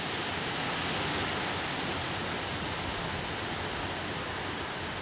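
Strong wind blowing steadily: a constant rushing hiss that neither rises nor falls.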